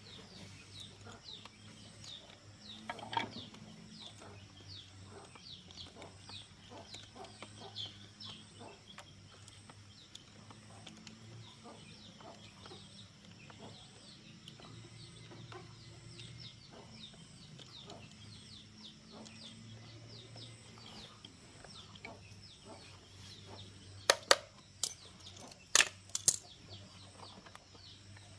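Chickens calling, with a steady run of rapid, high, falling chirps and one louder call about three seconds in. A few sharp clicks or knocks come near the end.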